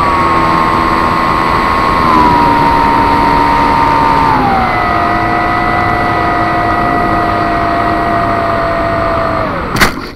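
3542 brushless motor and pusher propeller of a Zeta Phantom FX-61 flying wing, heard through the on-board camera over rushing air: a steady whine that steps down in pitch about halfway through as the throttle eases. Near the end the whine winds down, followed by a few loud knocks as the plane hits the grass.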